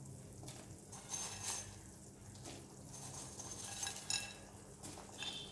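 Light clinks and rustling as broken pieces of instant noodles are tipped into a pan of boiling water, with utensils knocking against the pan.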